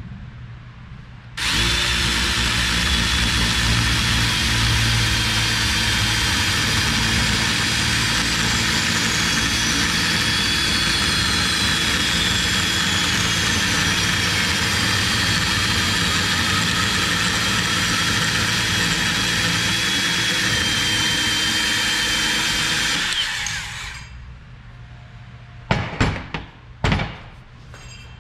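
Cordless portable band saw (portaband) cutting through the cast-aluminium exhaust spigot of a Harley-Davidson Panhead cylinder head. The motor starts about a second in and runs steadily under load for about twenty seconds, then stops. A few short knocks follow near the end.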